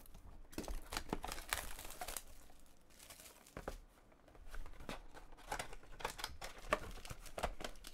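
Plastic wrap crinkling and tearing as it is slit with a utility knife and pulled off a cardboard trading-card box, with sharp scrapes and taps of cardboard as the box is handled and its lid opened.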